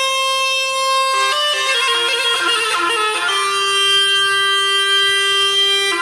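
Background music on a bagpipe: a reedy melody that runs through a string of quick notes, then settles on one long held note for the second half.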